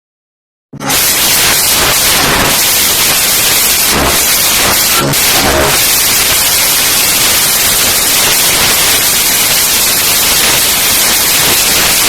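Loud, steady hiss of static white noise that starts abruptly less than a second in.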